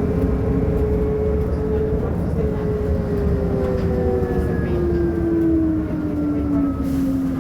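Trolleybus electric traction motor whining over a low running rumble, its pitch sliding steadily down from about two seconds in as the bus slows.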